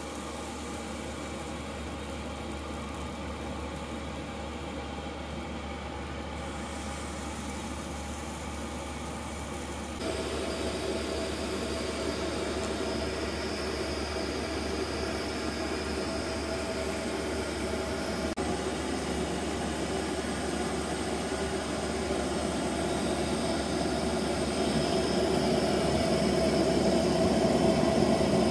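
Steady sizzling and hissing of pancakes cooking on an oiled griddle over a propane camp stove's burners. The sound gets louder about ten seconds in and again toward the end.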